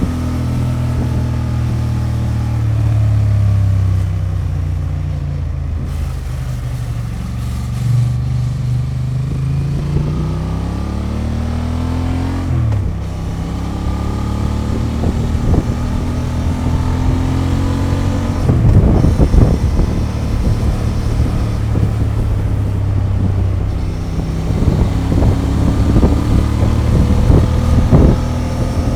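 Honda XL750 Transalp's 755 cc parallel-twin running through its stock exhaust on the move, the revs climbing and falling, with one sharp drop in pitch about halfway through. Wind buffets the microphone in the second half.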